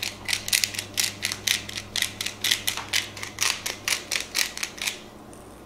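Hand-twisted pepper mill grinding pepper in quick rasping, ratchet-like strokes, about four a second, stopping about five seconds in.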